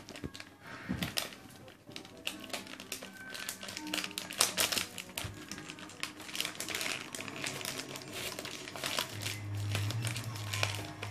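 A dog chewing and pulling at gold foil gift wrap, the foil crinkling in quick irregular crackles. Faint music plays underneath, and a low steady hum comes in near the end.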